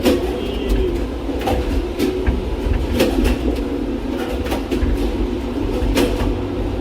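Gateway Arch tram capsule climbing on its track, heard from inside the capsule: a steady low rumble and whir, broken by sharp clunks every second or so at irregular intervals as the capsule pivots back and forth to stay level.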